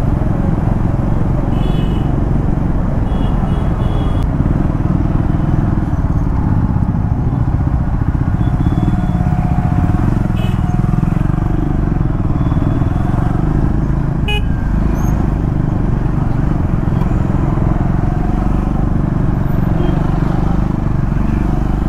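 Triumph Scrambler 400X's single-cylinder engine running at riding speed, heard from the saddle in heavy traffic. Short horn beeps from nearby vehicles come about 2 and 3–4 seconds in.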